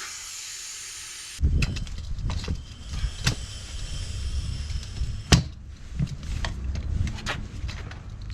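A steady hiss for about the first second and a half, then irregular knocking and clattering of parts and tools being handled over a low rumble. One sharp knock stands out about five seconds in.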